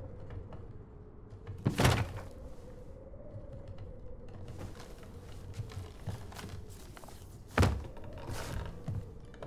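A faint, slightly wavering hum under two dull thuds, one about two seconds in and one shortly before the end, with a soft swish just after the second.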